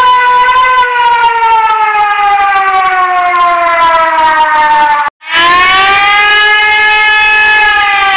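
Civil defense warning siren wailing, its pitch falling slowly over several seconds. About five seconds in it cuts off briefly, then a siren tone starts again, rises a little and falls slowly.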